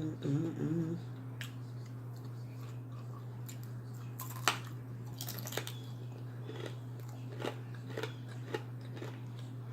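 Close-miked chewing and biting of bacon, with scattered sharp crunches and clicks over a steady low hum; a brief voice sound in the first second.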